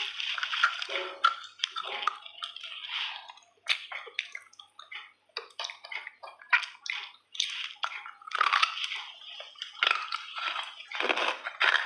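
Chunks of clay being eaten: crunching as pieces are bitten and chewed, and crumbling as more are broken apart with the fingers, in an irregular run of short crisp crackles.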